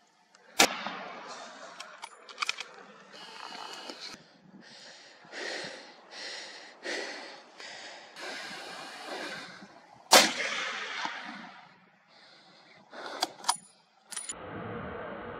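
Two loud shotgun shots, one about half a second in and one about ten seconds in, each with a short ringing tail. Fainter sharp cracks and short noisy bursts fall between them, and a steady hiss sets in near the end.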